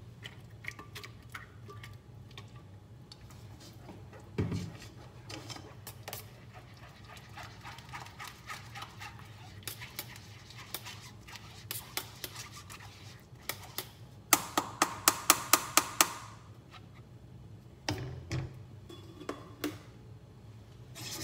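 A silicone spatula scrapes and presses blended lentil soup through a metal mesh sieve over a pot, with scattered light clicks of the utensils. About two-thirds of the way through comes a quick run of about ten sharp, ringing metallic taps on the sieve, knocking it clear. A steady low hum sounds underneath.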